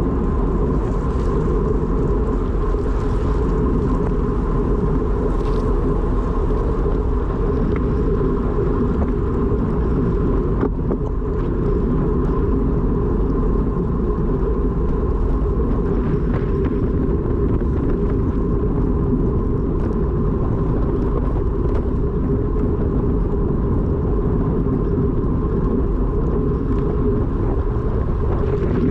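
Steady wind rush and road noise on a camera moving at racing speed with a bicycle race, with a constant hum running through it.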